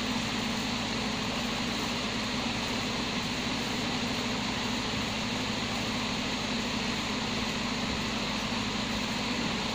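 Steady machine hum and hiss, even throughout with no breaks, in the manner of a running fan or air-conditioning unit.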